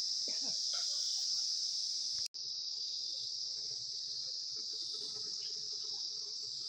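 Insects chirring in a steady, continuous high-pitched drone, with a brief dropout about two seconds in.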